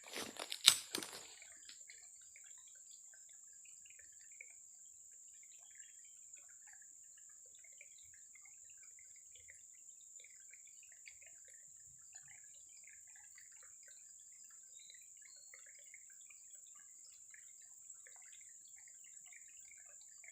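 Faint dripping and trickling water under a steady high-pitched hum, after a few sharp knocks in the first second or so.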